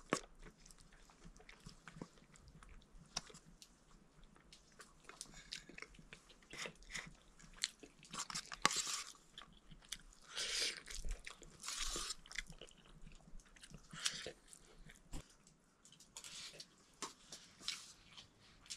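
A man eating rice and cabbage curry from a spoon close to the microphone, with wet chewing and mouth sounds and many short clicks of the spoon against his plate.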